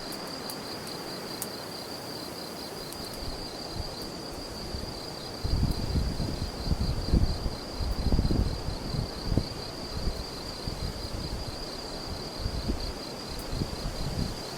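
Crickets trilling steadily with a fast, even high-pitched pulse. From about five seconds in, gusts of wind rumble on the microphone.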